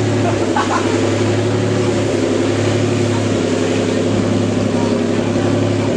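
Lamborghini engine running on a dyno at a steady, unchanging speed, its note even throughout without revving up or down.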